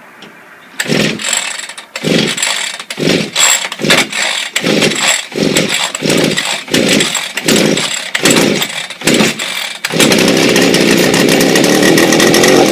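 Two-stroke chainsaw engine on a homemade go-kart being started: it fires in loud, uneven bursts about twice a second, then catches at about ten seconds and runs steadily. It is cold, running on freshly added petrol mix.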